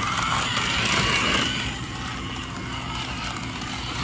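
Battery-powered LED toy race car running along a flexible plastic track, its small electric motor whirring steadily. It is a little louder in the first second or two, then eases off.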